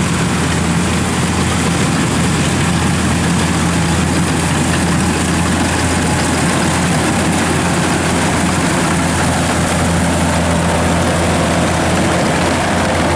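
Kubota DC-93 rice combine harvester running steadily while it cuts and threshes rice: its diesel engine runs with a constant low hum and the machinery adds an even noise over it.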